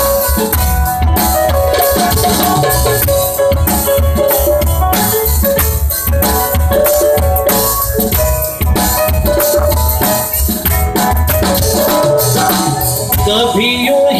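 Live band playing an instrumental passage of a slow Hindi film song, with a drum kit keeping a steady beat under held melody notes.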